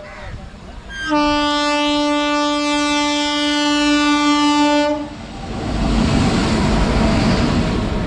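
WAG-9HC electric locomotive's horn sounding one long, steady blast of about four seconds. About a second after the horn stops, the loud rumble and clatter of the train passing close by builds up.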